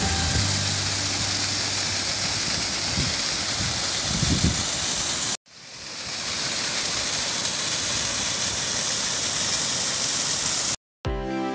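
Rushing water of a partly frozen mountain waterfall, a steady dense hiss. It cuts out abruptly about five seconds in, then fades back up.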